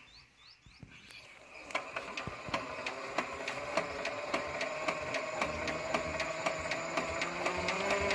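Hand tractor's single-cylinder diesel engine starting up through a newly fitted aftermarket exhaust: after a second or so of quiet, a steady beat of exhaust pops about three a second sets in, quickening and getting louder as the engine picks up speed.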